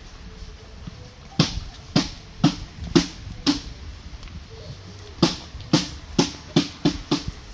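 A series of sharp knocks, each with a short low ring, about two a second: five, a pause, then six more coming quicker near the end.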